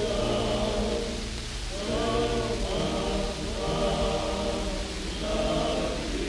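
Barbershop quartet singing a cappella, holding sustained close-harmony chords in short phrases.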